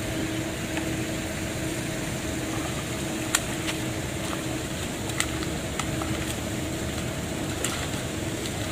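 Steady low background hum with a faint steady tone in it, and a few sharp clicks, the loudest about three seconds in, others about five seconds in and near the end.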